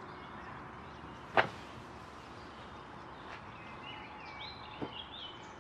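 Quiet outdoor ambience with one sharp knock about a second and a half in and a fainter tap near the end, while small birds chirp in the last second or two.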